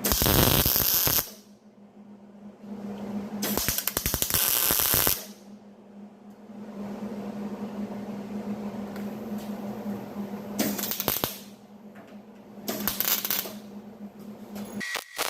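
Power tool run in four short bursts of rapid clattering, over a steady low hum.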